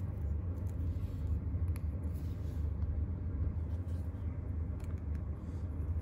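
Steady low background rumble, with a few faint ticks from wires and a plastic terminal block being handled.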